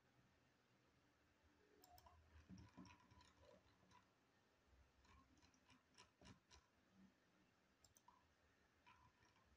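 Faint computer mouse clicks, scattered irregularly over near-silent room tone.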